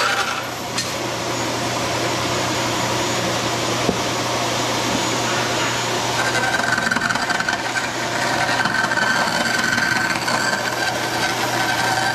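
Vertical band saw running and cutting through a sheet along a curve, the blade rasping steadily over the motor's constant hum. A high whine from the saw drops out just after the start and comes back about halfway through.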